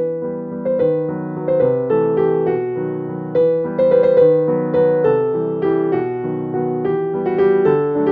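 Background piano music: a gentle melody of struck notes over sustained chords.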